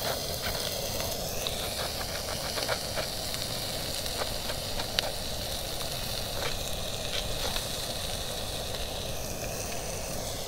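Sausages and meat sizzling on a portable gas grill: a steady frying hiss. A few light clicks of a knife cutting into a bread roll.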